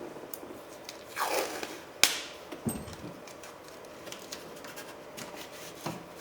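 Plastic door water shield crinkling and rustling as it is pressed back and taped into place, with a sharp click about two seconds in and a softer knock just after.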